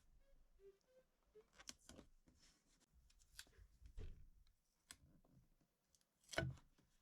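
Faint, scattered clicks and rustles of masking tape being handled and pressed down on a panel, with one louder knock about six seconds in.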